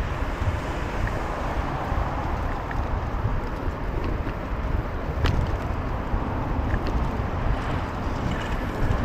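Steady city street noise heard while riding along a road: a low rumble of wind on the microphone and road noise, with a few brief sharp clicks, the clearest about five seconds in.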